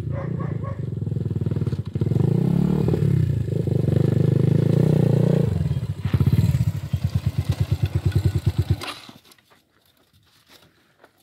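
Dirt bike engine running and revving up and down, then dropping to a slow, even chugging that stops about nine seconds in as the engine is shut off.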